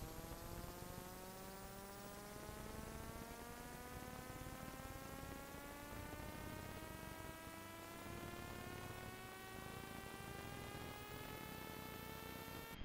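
Faint electrical hum or whine from the film transfer: a steady pitched tone with many overtones that rises slowly and evenly in pitch and breaks off right at the end.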